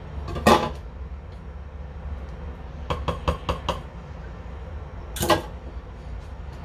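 Food processor parts being handled: a clatter about half a second in, then about five quick taps as the blade is lifted from the bowl, and another clatter near the end. A low steady hum runs underneath.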